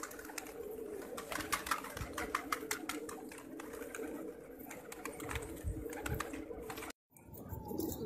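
A large flock of domestic pigeons cooing together in a steady, overlapping drone, with a patter of short clicks through the first few seconds. The sound cuts out briefly near the end.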